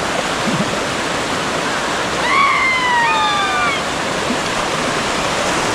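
Waterfall: a steady rush of falling water. About two seconds in, a high call glides downward, with a second one overlapping it.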